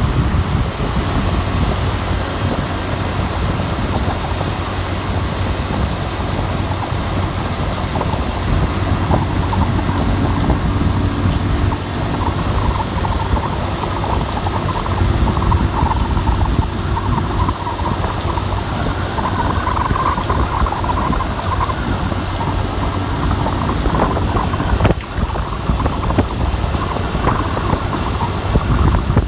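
Wind and rain: a steady rushing noise with heavy, uneven buffeting of the wind on the microphone.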